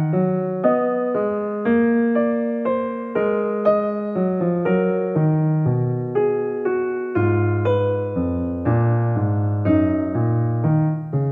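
Background keyboard music: a piano-like melody and chords with notes struck about twice a second.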